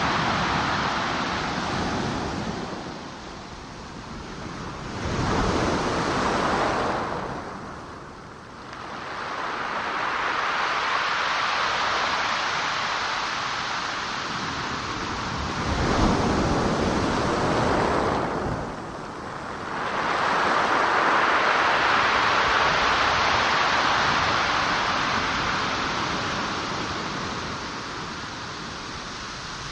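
Ocean surf: waves breaking and washing ashore, the rush of water swelling and fading every few seconds.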